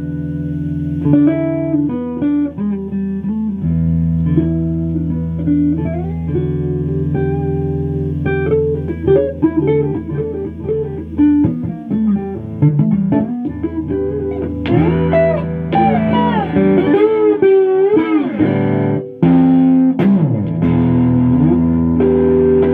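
Electric guitar played lead-style through an amp, in a blues vein: quick single-note runs, then string bends that waver in pitch in the second half, over steady low held tones. The sound drops out for a moment about two-thirds of the way through.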